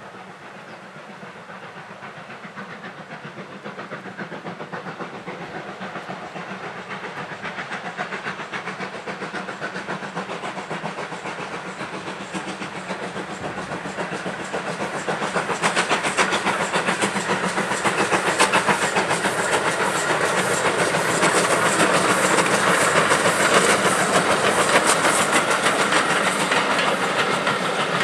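Steam locomotive hauling a passenger train, its exhaust chuffing and hissing louder and louder as it approaches, with a fast, even beat that is loudest in the second half as the engine and coaches pass.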